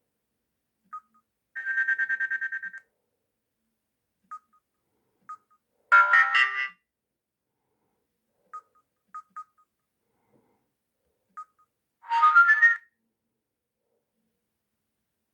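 Samsung SGH-F480 mobile phone playing short ringtone previews through its loudspeaker, with single short key beeps between them. There are three previews, each about a second long and cut short: a fast pulsing tone about a second and a half in, then two brief multi-note melodies, around the middle and near the end.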